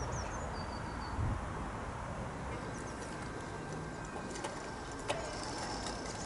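Outdoor garden ambience with small birds chirping and a pigeon cooing. From about three seconds in, a small electric model locomotive runs along the track: a faint steady whine from its gearhead motor and light clicking from the wheels and gears, with one sharper click about five seconds in.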